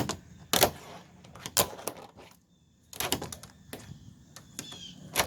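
Tech Deck fingerboard clacking on a plastic trash can lid: a string of sharp separate clicks and knocks as the little board's tail and wheels strike the plastic, with a short pause in the middle.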